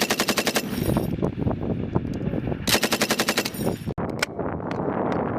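Machine gun firing two bursts of rapid shots about a second long, one at the start and one past the middle. After a sudden break comes a lower, steadier rumble of firing with a few single shots.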